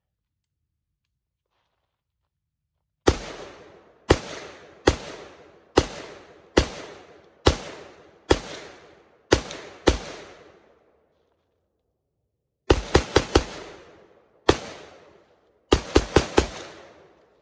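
Geissele Super Duty 14.5-inch AR-15 rifle in 5.56 NATO firing 18 shots. From about three seconds in come nine single shots about a second apart. After a short pause there is a quick string of four, then one single shot, then another quick string of four near the end. Each shot is a sharp crack followed by a fading echo.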